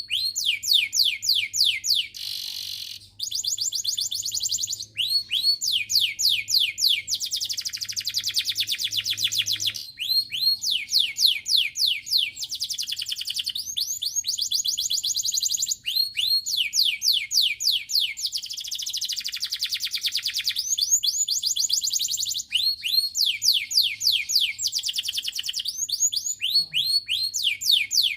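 Domestic canary singing: long, fast trills of rapidly repeated high notes, each sweeping downward, one phrase after another with brief breaks between them.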